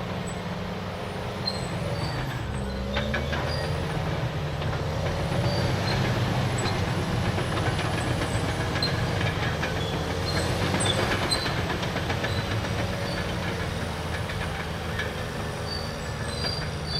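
Caterpillar D6R crawler dozer with its C9 diesel engine running steadily, its steel tracks clanking and squeaking in short high chirps.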